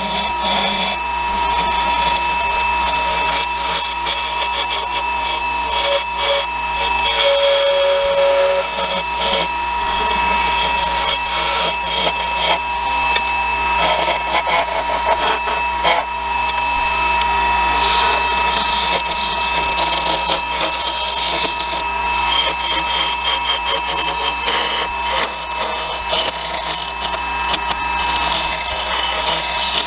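JET variable-speed wood lathe running with a steady whine while hand turning tools cut a long, thin aromatic cedar spindle. The cutting noise comes and goes unevenly as the tool works along the piece.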